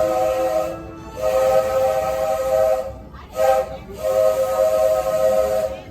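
Lonergan three-chime steam whistle on locomotive #3 Roger E. Broggie sounding a chord. One blast ends about a second in, then comes a long blast, a short one and a final long one: the long-long-short-long grade crossing signal.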